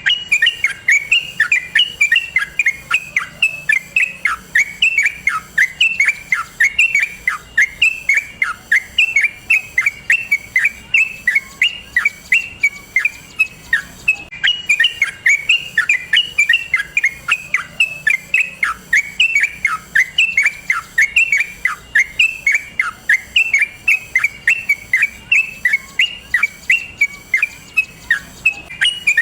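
Yellow-vented bulbul singing a long, unbroken run of quick chirping notes, each dropping in pitch, about three to four a second.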